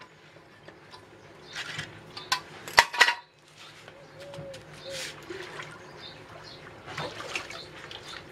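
A small wooden barrel and metal tools clattering as the barrel is lifted off a metal hand press: a quick run of sharp knocks about three seconds in, then lighter knocks and handling noise.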